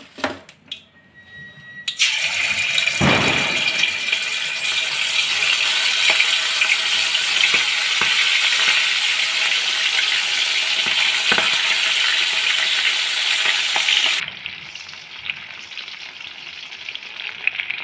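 Marinated prawns deep-frying in hot oil in a steel kadai. After a few light clicks, a loud sizzle starts suddenly about two seconds in and holds steady. Near the end it drops abruptly to a softer, crackling sizzle.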